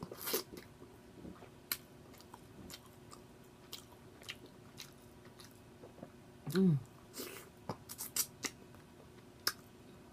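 Close-up eating sounds: chewing chicken and noodles, with scattered wet smacking clicks from the mouth. About two-thirds of the way through comes a brief low hum of the voice, the loudest sound.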